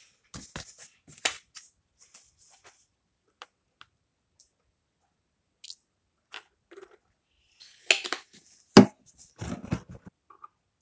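Plastic ketchup squeeze bottle being handled and squeezed upside down: a string of clicks and short wet sputtering squirts, loudest and densest near the end, with one sharp click shortly before the end.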